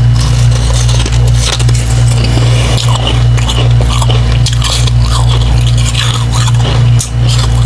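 Slushy ice made of refrozen humidifier frost chunks dipped in water being bitten and chewed in a run of soft crunches, over a steady low hum.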